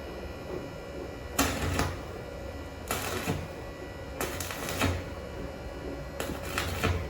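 Stick welder striking short arcs: four brief bursts of crackling, each under a second, with a steady low hum between them.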